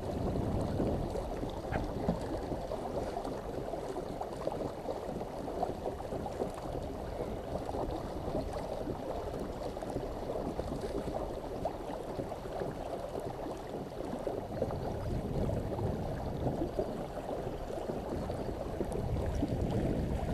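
Water sloshing and gurgling against a kayak's hull, steady throughout.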